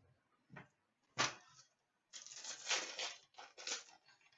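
A foil trading-card pack wrapper being torn open and crinkled: two short sharp tears, then about two seconds of crackling crinkle as the wrapper is pulled apart and crumpled.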